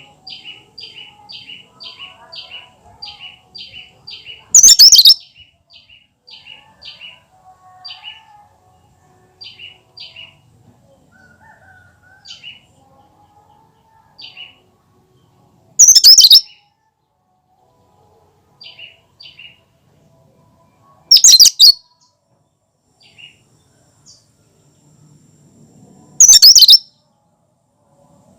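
Cucak kinoi calling: a run of short, high chipping notes at about two a second that thins out after a few seconds, broken by four much louder, brief, shrill outbursts spaced several seconds apart.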